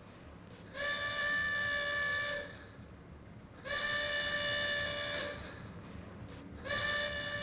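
Launch-site warning horn sounding in three long, steady blasts of about a second and a half each, repeating about every three seconds: the pre-launch alert during a missile countdown.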